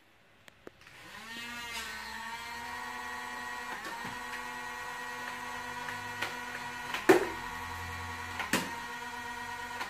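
Electric motor of a motorized Nerf-style toy dart gun spinning up about a second in, its whine rising in pitch and then holding steady. Two sharp cracks come about seven and eight and a half seconds in as darts are fired, with another near the end.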